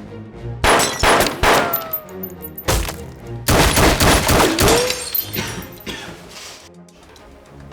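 Film sound-design gunfire: a run of loud, sharp shots and impacts in the first four seconds or so, a couple trailing off in falling whines, over a background music score that carries on as the shots fade.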